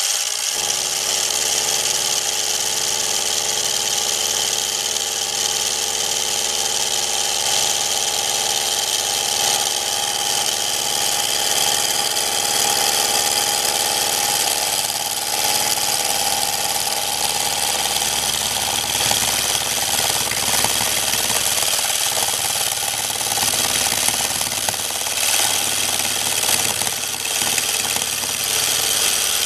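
550-watt mini milling machine running under power, its brushed DC motor and geared spindle drive giving a loud, steady whine of several tones as an end mill cuts along the edge of a metal plate.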